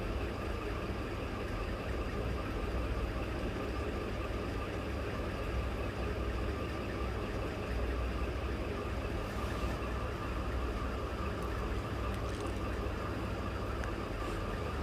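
Steady low mechanical hum, with a few faint snips of scissors cutting stiff canvas in the second half.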